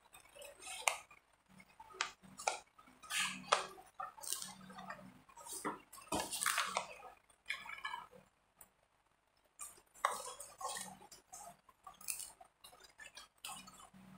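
Scissors snipping through a sheet of paper in short, irregular cuts, with the paper rustling as it is turned. There is a short pause a little past halfway.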